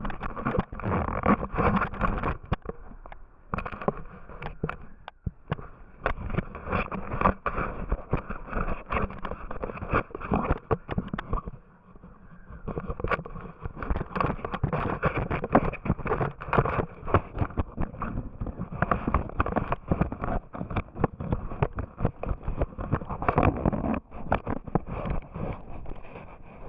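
Close rustling, scraping and knocking of an action camera being handled and rubbed against clothing fabric, with short lulls about 5 and 12 seconds in.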